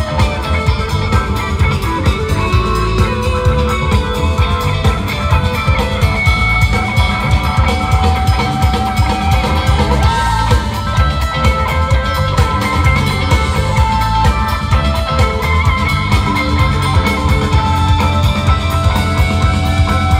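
Live rock band playing an instrumental jam: electric guitars holding sustained lead lines over drum kit, bass and keyboards.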